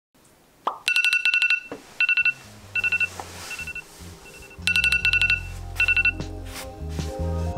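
Smartphone alarm ringing in repeated short trains of rapid, high electronic beeps. It stops a little after six seconds in, when it is switched off.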